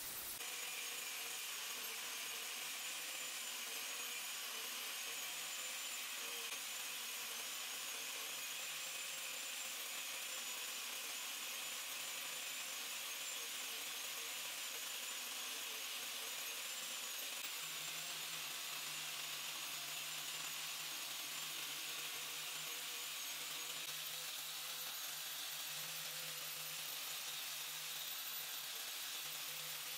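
Angle grinder with an abrasive cut-off disc, guided on a sliding rig, cutting through thick steel plate: a steady high-pitched whine with a grinding hiss. A low hum comes up a little past halfway.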